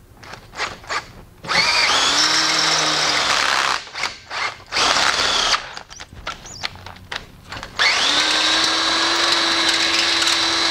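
Cordless drill with a 3/8-inch bit drilling out a pilot hole in an aluminium tube fitting at high speed. It runs in short trigger spurts, then a long run from about a second and a half in, more spurts, and another long steady run through the last three seconds.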